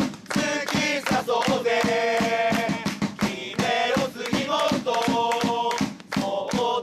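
Football supporters singing a player's chant in unison, in long held phrases with short breaks between them, over a steady beat of about four drum strikes a second.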